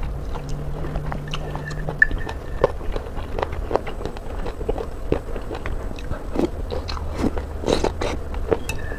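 Close-up mouth sounds of someone chewing and biting chicken: irregular wet smacks and small crunchy clicks. A low hum sits under the first two seconds.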